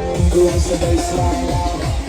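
Electronic dance music with a fast, steady kick drum under a melodic line.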